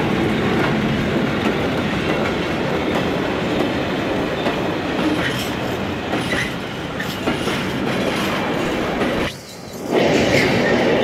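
Freight train's container flat wagons rolling past on the rails, a steady rumble of wheels with clickety-clack over the rail joints and scattered clanks. The sound drops away sharply for about half a second near the end, then returns.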